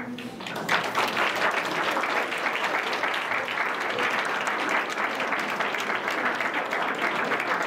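Audience applauding, starting under a second in and going on steadily.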